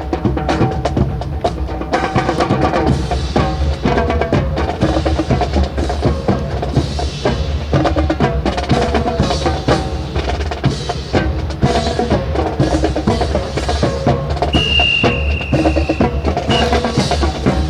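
Marching drum-and-band music with quick, sharp percussive strokes, accompanying a rifle drill. About three-quarters of the way in, a short high steady tone sounds for a second or two.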